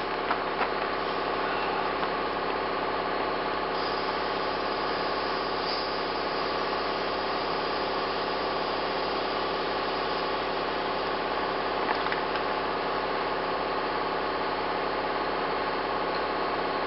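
Air compressor running steadily while pumping up a flat tire.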